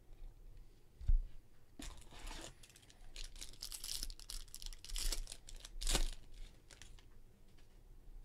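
Foil wrapper of a Bowman Chrome trading-card pack being torn open and crinkled in a run of rustling tears, with one sharp rip about six seconds in.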